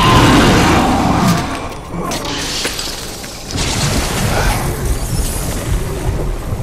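Film fight sound effects: a loud, heavy hit at the start that dies away over about a second, then a steady low rumble from about three and a half seconds in.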